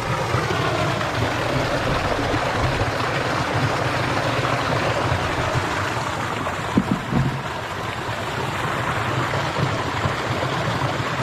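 Steady rush of running water, with a couple of soft knocks about seven seconds in.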